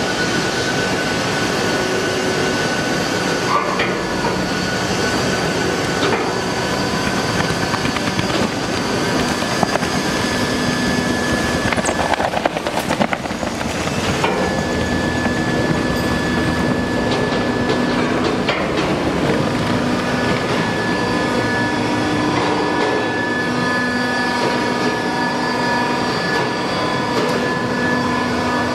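Industrial plastic shredder running under load, its toothed rotor shafts grinding and tearing through plastic bags and film. It is a steady, loud grinding clatter with held whining tones over it, and a cluster of louder cracks and knocks about halfway through as material is bitten off.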